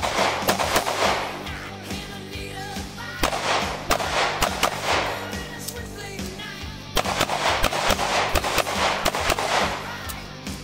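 Semi-automatic pistol fired in rapid strings of shots, in three bursts of quick fire with short gaps between as the shooter moves to new positions, over background music.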